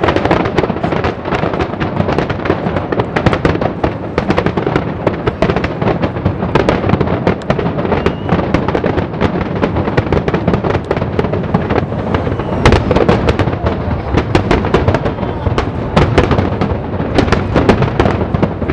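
Aerial fireworks display: a loud, dense run of bursts and booms in quick succession, crackling between the blasts.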